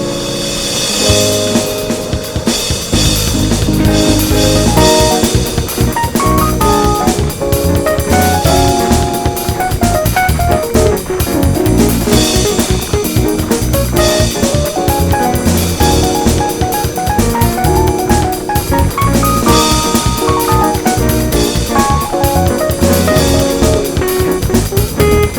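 Background music with a steady drum-kit beat and a guitar melody; the drums and bass come in about a second in.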